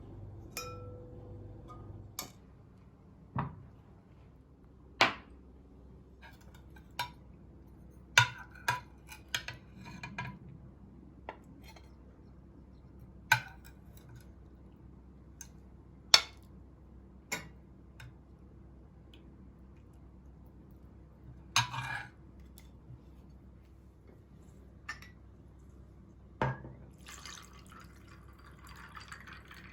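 Kitchen handling sounds: dishes, glassware and utensils clinking and knocking now and then, some with a short ring. Near the end, a soft sound of running or pouring liquid.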